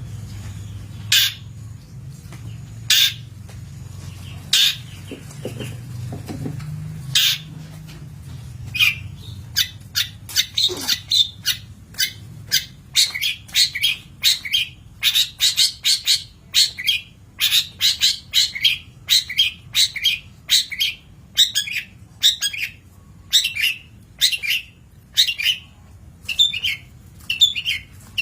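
Long-tailed shrike calling: a few separate sharp, harsh calls spaced a couple of seconds apart, then from about nine seconds in a fast run of chattering calls, about two a second.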